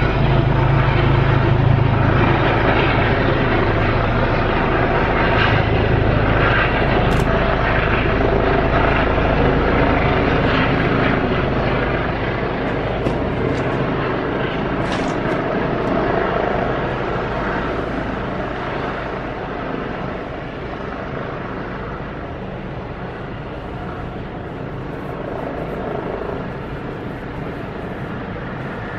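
Helicopter landing, its rotor and turbine engine running loud with a deep steady throb, the sound gradually dropping off over the second half.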